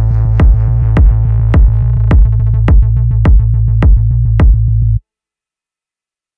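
The closing bars of an electronic dance track: a drum-machine kick about every half second over a steady heavy bass and a held synth chord that thins out. The music cuts off abruptly about five seconds in.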